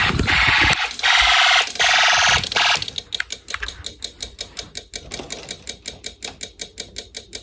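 Fire alarm horn sounding steadily, cut off by the silence about three seconds in; a relay then keeps clicking rapidly, about five times a second, because the silence is not audible silence and the alarm signal is still active.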